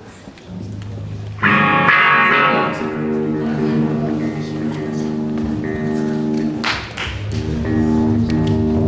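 A live band's instrumental song intro: after a low held note, a guitar strikes a loud chord about a second and a half in and lets it ring, with further chords struck near the end.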